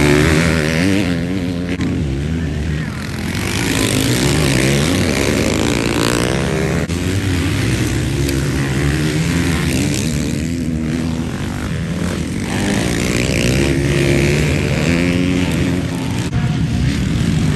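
Several 250/450cc motocross bikes racing past, engines revving up and down as they accelerate out of the corners and shift, with one bike's note following another.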